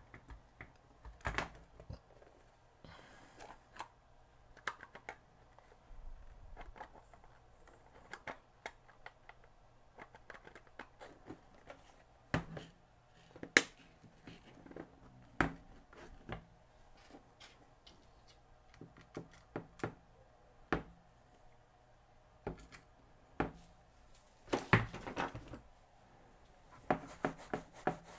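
Plastic case of a Fluke 88 multimeter being handled and pressed shut: scattered light clicks and knocks, the loudest about halfway through and a quick cluster of them near the end.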